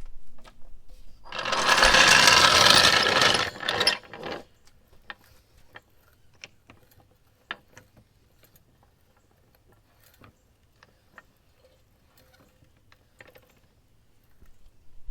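Floor jack clattering and rattling for about three seconds, then scattered light clicks and knocks as it is set in place.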